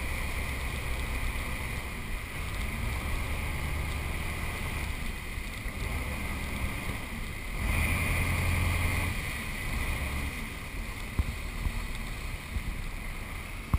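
A boat under way on the open sea: steady rushing of wind and water with a low rumble underneath, swelling louder for a second or so about eight seconds in.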